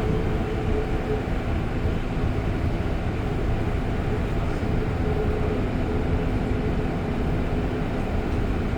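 REM light-metro train heard from inside the car: a steady rumble and running noise with a faint steady hum, unchanging throughout.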